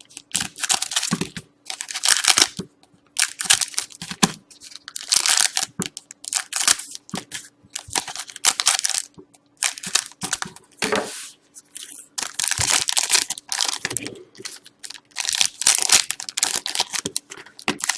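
Trading card packs being torn open and their wrappers crinkled, a run of short rustling, tearing bursts.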